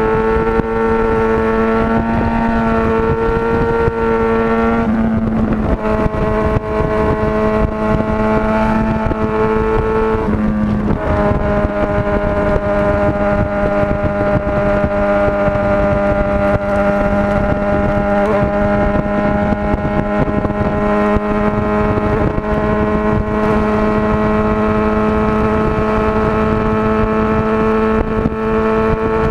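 Motorcycle engine running at a steady cruising speed, heard from a camera on the bike. Its note breaks up and shifts briefly about five seconds in and again about eleven seconds in, then holds steady.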